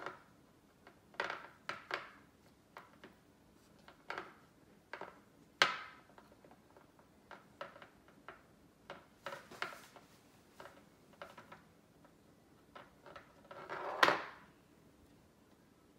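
Hard plastic clicking and tapping as a clear plastic tooth mold from a Play-Doh dentist set is handled on a wooden table. The clicks come in scattered groups, with a sharp knock about six seconds in and a longer, louder clatter near the end.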